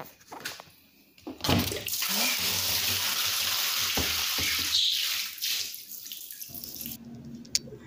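A stream of water pouring and splashing onto a tiled floor, flooding it. The steady rush starts about a second and a half in and drops away a second or so before the end.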